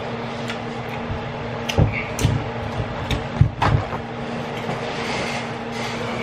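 Steady low room hum, with several short knocks and clicks in the middle.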